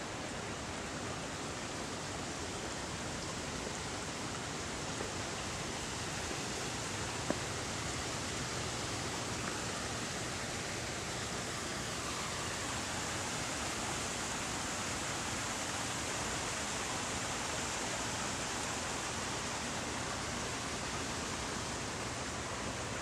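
Steady rush of a garden stream and small waterfall flowing over rocks.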